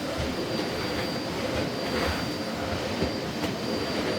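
Miele CX1 Blizzard bagless canister vacuum cleaner running steadily, its motor whine holding one pitch, with a few faint knocks of the floor head.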